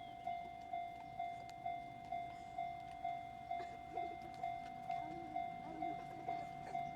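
Japanese railway level-crossing warning bell ringing, an electronic ding struck evenly about twice a second, which signals that a train is approaching the crossing.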